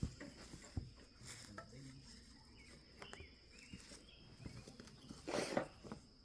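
Quiet outdoor sounds: scattered footsteps and light knocks over a steady high thin hum, with a few short chirps and a louder rustling burst about five seconds in.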